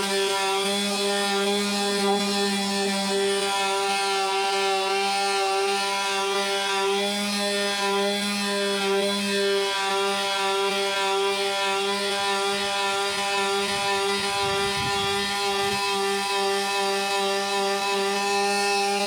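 Electric power sander running steadily against painted wood, its motor giving a constant pitched hum with a rough scratching of sandpaper over it.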